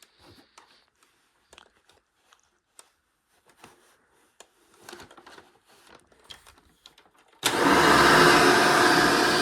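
Faint scattered clicks and handling knocks. About seven and a half seconds in, a 1993 Hoover Energy Efficient vacuum cleaner switches on suddenly and runs loud and steady.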